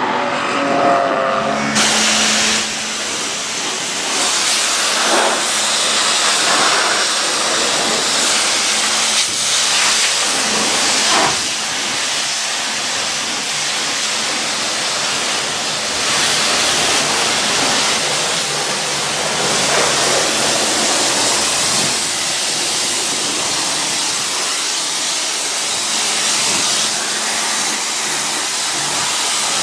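A pressure washer's jet spraying water onto a muddy Citroën Saxo race car: a loud, steady hiss that swells and fades a little as the spray sweeps over the bodywork. In the first second or two, before it, a race car's engine and its tyres squealing as it slides on the track.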